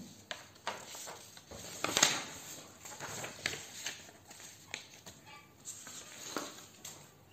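Irregular light taps and clicks, about ten over several seconds, the loudest about two seconds in.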